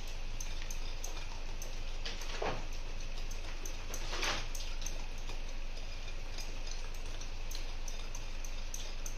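Wire whisk beating thick cupcake batter in a glass bowl, its wires ticking against the glass about three or four times a second, with two louder strokes about two and four seconds in.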